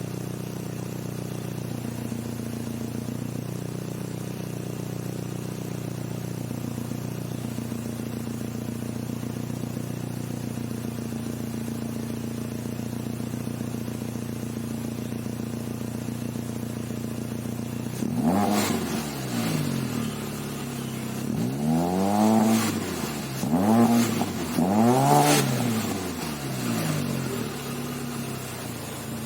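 Proton Savvy's 1.2-litre D4F four-cylinder engine idling steadily through a Spoon N1 aftermarket muffler, then revved in four or five short throttle blips over the last ten seconds, each rising and falling back to idle.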